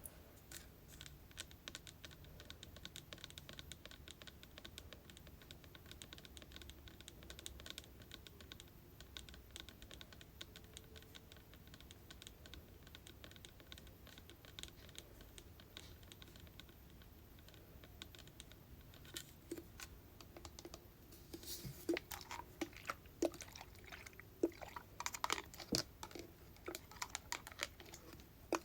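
Fingers tapping on hair product containers in quick, light, clicky taps. The taps grow louder and sharper in the last several seconds.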